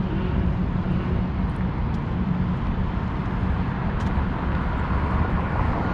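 Steady low engine rumble of vehicles, with an even noise of the street around it.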